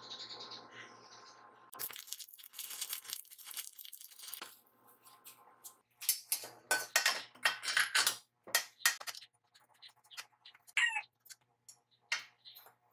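Stick (arc) welding crackling for about two and a half seconds as a tack weld is struck on a steel frame. Then a run of sharp metal clinks and taps as frame parts and a wrench are handled while bolts are tightened.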